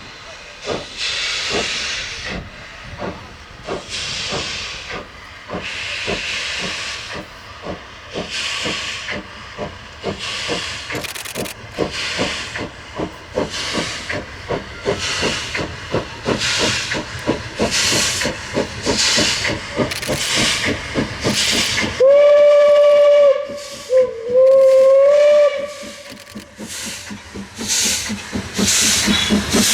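Steam locomotive 23 042 working hard, its exhaust beats coming steadily faster as it gathers speed. About two-thirds of the way through, its steam whistle sounds, one long blast and then a second, over about three and a half seconds, before the chuffing carries on.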